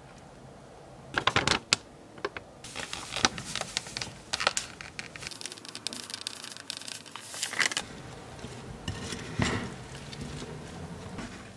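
Sliced lemons going into a glass bowl with a few sharp clatters, then granulated sugar poured over them in a long hissing stream from about three to eight seconds in. Near the end, sugar-coated lemon slices are scraped and tossed with a wooden spatula.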